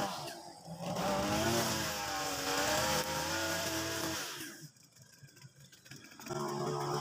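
Mitsubishi backpack brush cutter's engine running with a nylon trimmer line cutting grass, its pitch rising and falling as the throttle is worked. A little over halfway through it drops away to much quieter for about two seconds, then revs back up.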